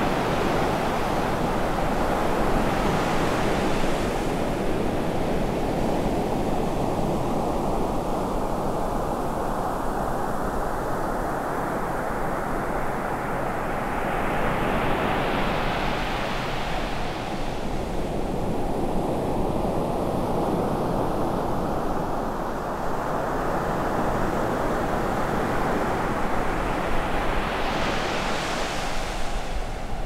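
Ocean surf breaking and washing up a sand beach: a continuous rush of waves. The hiss of the foaming wash swells twice, about halfway through and again near the end.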